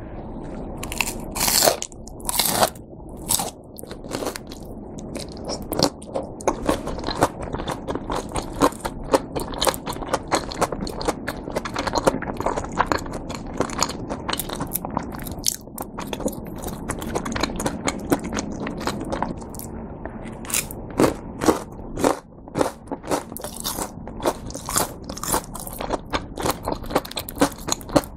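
Crunching and chewing of a breaded, deep-fried cheese pork cutlet: two loud crunchy bites about two seconds in, then continual crisp crunching as it is chewed.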